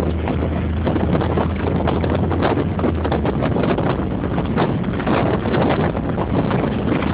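Inside a moving Spitfire car: heavy wind buffeting on the microphone over engine and road noise. A steady low engine hum drops away about three seconds in.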